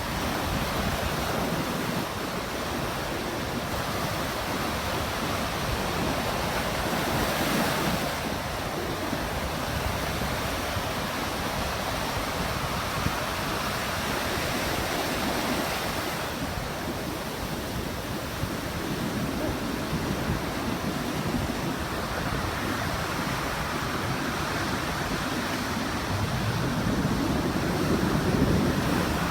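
Sea surf: waves breaking and washing ashore, a steady rush that swells and eases every several seconds.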